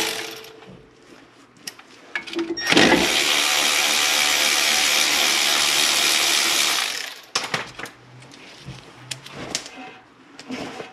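A handheld power tool runs steadily for about four and a half seconds, starting about three seconds in, spinning a bolt on a brake caliper. Light clicks and clinks of handling follow near the end.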